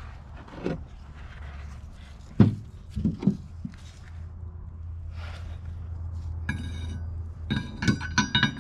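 Steel synchronizer parts of an Eaton 13-speed transmission's auxiliary section being handled and fitted together on a workbench. A few dull knocks come two to three seconds in, then bright ringing metal clinks from about six and a half seconds in, as the low-side synchronizer ring is set down over its pins.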